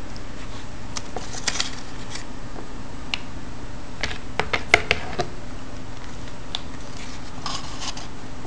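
Scattered light clicks and scratches of a cat's paw and claws on a plastic tub and floating paper boats, busiest about four to five seconds in, over a steady low hum.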